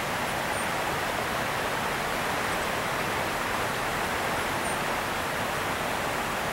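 Steady rushing of flowing water, an even hiss-like roar with no rhythm, with a few faint high chirps above it.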